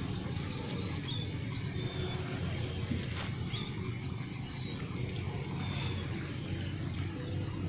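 Steady high-pitched insect buzz, with a few short, faint bird chirps and a low rumble underneath.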